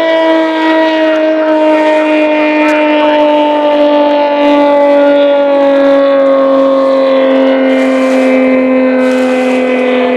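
Ski-racing boat's engine running flat out, a loud, steady high-pitched note whose pitch sinks slowly as the boat runs on.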